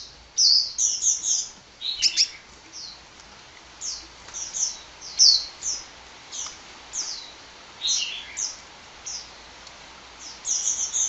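A sunbird (the bird Indonesian keepers call 'kolibri') singing: quick runs of high, thin, down-slurred chirps, some in rapid clusters of several notes, others single, with short gaps between.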